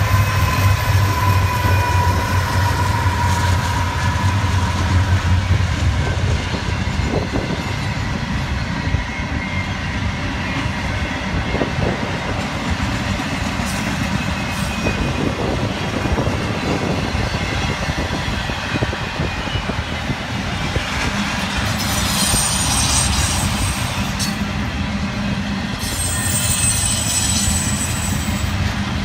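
CSX freight train passing: the diesel locomotive's engine is loud and low for the first several seconds. Then the freight cars roll by with a steady rumble and clatter of wheels on rail. Near the end come two spells of high-pitched wheel squeal.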